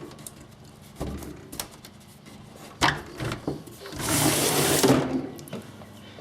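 A few sharp clicks and knocks from handling a reattached double-hung window sash latch, then a rushing scrape about a second long, the loudest sound here.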